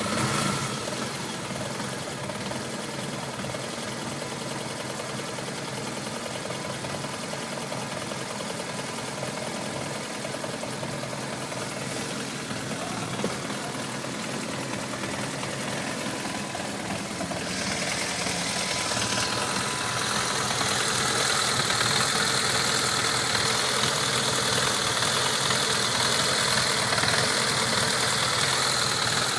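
BMW F650GS motorcycle engine idling with an irregular tickover, the uneven idle of a bike that tends to stall when the revs drop. About eighteen seconds in, it grows louder and stays so.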